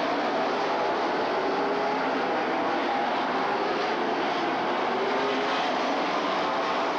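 A pack of late model stock cars' V8 engines running at racing speed, a steady loud drone with several engine notes sliding up and down as the cars pass.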